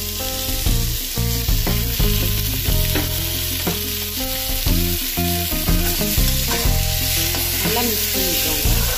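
Shredded vegetables frying in an oiled pan, sizzling steadily, while green chilli sauce is added and the mix is stirred with a wooden spatula.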